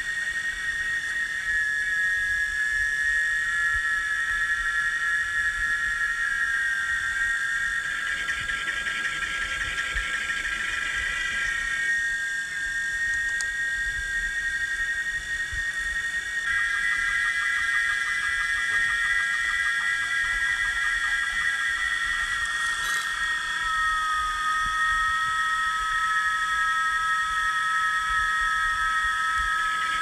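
Chorus of cicadas calling: several steady, high buzzing tones overlap, some with a fast pulsing trill. The blend of calls shifts abruptly several times.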